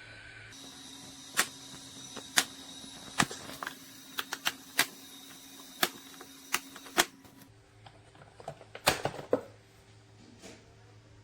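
A run of about a dozen sharp, irregular clicks and knocks, with a faint steady hum underneath.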